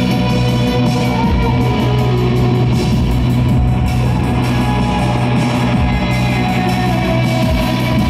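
Live rock music with no singing: a loud instrumental passage led by guitar over a steady, held low note.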